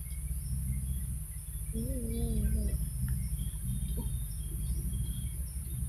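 Outdoor forest ambience after rain: a steady high-pitched insect drone with scattered faint bird chirps over a low rumble. A short, wavering low hum comes about two seconds in.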